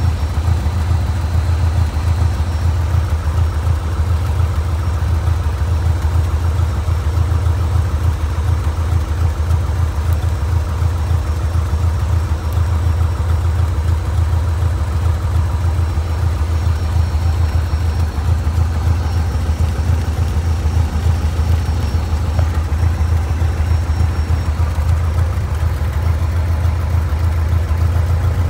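Light airplane's piston engine idling steadily at low RPM after startup, heard from inside the cockpit as a steady low drone.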